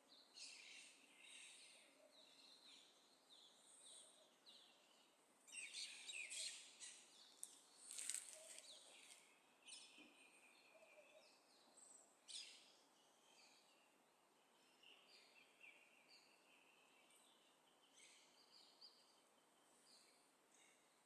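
Birds chirping faintly: many short scattered calls, busiest around six to nine seconds in, with a few longer whistled notes in the second half.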